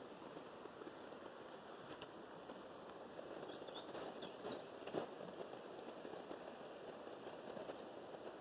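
Steady rushing of a river, with a few short, high bird chirps about halfway through and a single sharp click just after them.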